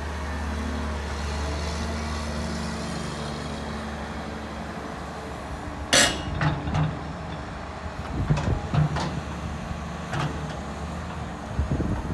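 Caterpillar 330 D2 L excavator's diesel engine running steadily. About halfway through there is a sharp, loud bang, followed by a string of shorter metallic knocks and clanks.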